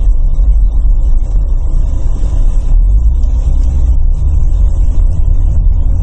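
Car in motion, heard from inside the cabin: a steady, loud low rumble of engine and road noise.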